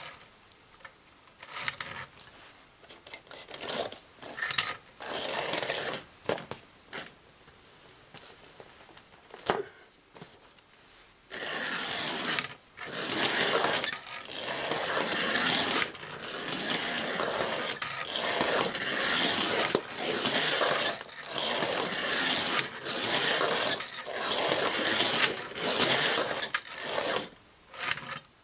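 Tri-ang Princess Elizabeth model locomotive's electric motor and worm gear whirring in stop-start spurts as it hesitates along the track: short faint spurts at first, then longer, louder runs from about a third of the way in. The owner puts the hesitation down to dirty track rather than the loco.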